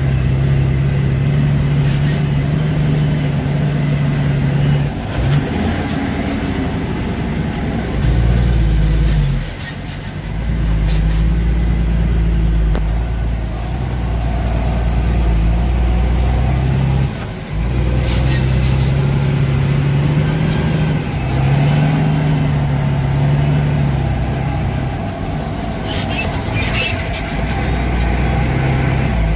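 Truck engine running under load, heard from inside the cab while driving over a muddy dirt track. The engine note dips briefly a few times and comes back, and there are a few sharp rattles near the end.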